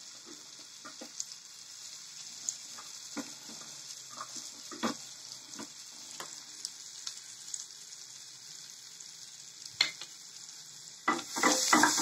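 Chopped onions and a green chilli frying in butter in a non-stick pan: a steady sizzle with scattered pops. About eleven seconds in, a wooden spatula starts stirring them, and the scraping and knocking against the pan gets much louder.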